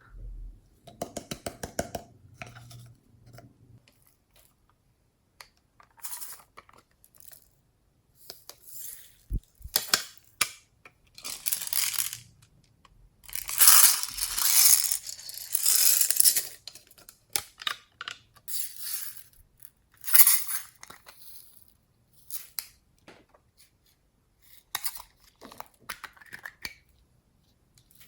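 Hands kneading and stretching slime: sticky crackling, popping and squelching in irregular bursts with short pauses between.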